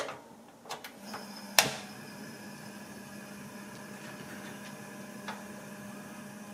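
Microwave oven door clicking shut with a sharp clack, then the oven starting up and running with a steady hum.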